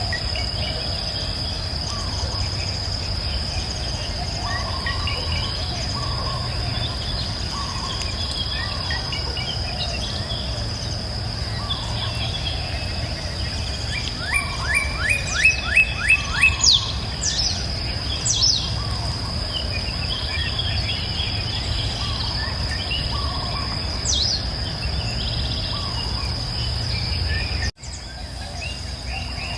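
Forest ambience of scattered bird chirps over a steady, high-pitched insect drone and a low rumble. About halfway through, one bird gives a loud run of about seven quick notes. The sound cuts out for an instant near the end.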